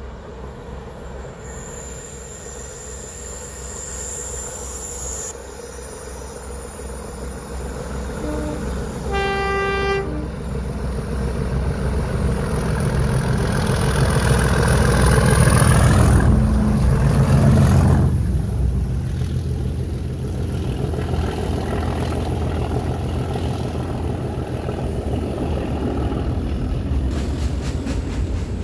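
A Class 97 and Class 37 diesel locomotive pair hauling a loaded log train approaches. It gives a short horn blast about nine seconds in. The engines' rumble then builds and is loudest as the locomotives pass, about halfway through, and the log wagons roll past after them.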